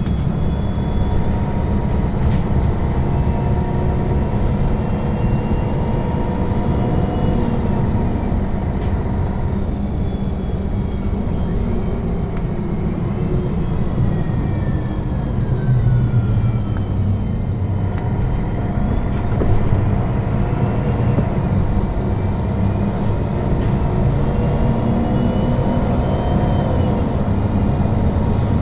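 A 2001 MAN NL 263 city bus driving, with a steady deep engine drone. Drivetrain whine slides down in pitch around the middle, then climbs again near the end.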